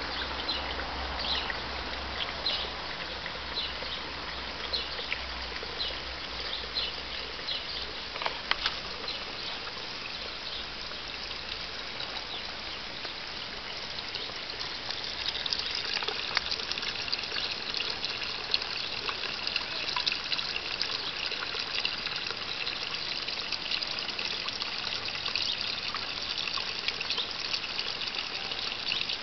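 Pond water trickling steadily, with short high ticks repeating about twice a second at first and a denser spatter of high ticks from about halfway. A low rumble underneath fades out after about nine seconds.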